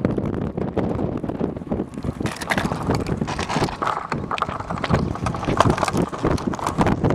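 Gusty wind buffeting the microphone, with many irregular knocks and rattles throughout.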